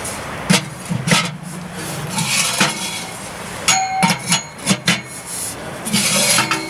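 Thin steel stovepipe sections clanking and knocking as they are slotted together and fitted onto a small steel tent wood stove, a few knocks ringing briefly, with rustling in between.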